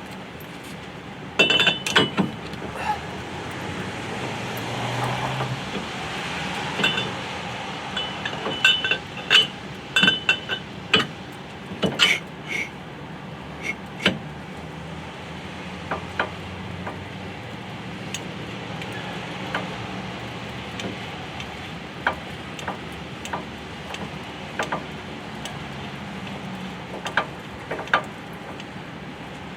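Irregular metal-on-metal clinks and knocks, several ringing briefly, as the rebuilt piston and rod assembly of a skid steer's hydraulic bucket cylinder is worked into its barrel. The clinks come thickest in the first half and thin out to occasional taps, over a steady low background hum.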